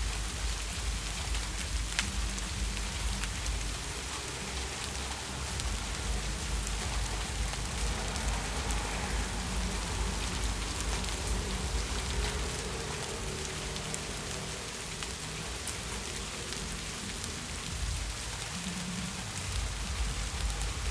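Heavy rain falling steadily, with scattered sharp drop ticks over a constant hiss and a low rumble underneath.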